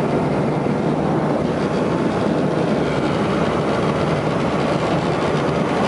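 Steady, loud rumbling noise of a vehicle in motion, deepest in the low range, with no change in level.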